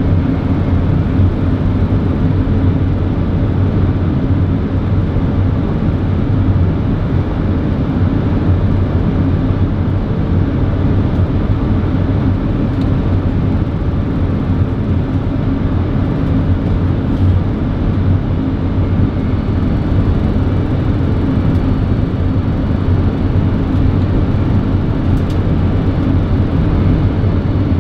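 Steady flight-deck noise of an Airbus A380 on final approach: an even rush of airflow with a low engine hum beneath it.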